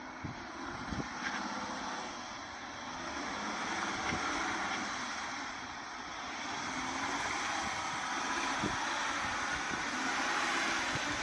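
Off-road vehicle's engine working under load as it crawls up a rocky slope, swelling and easing a couple of times, with a few faint knocks from the tyres and suspension on rock.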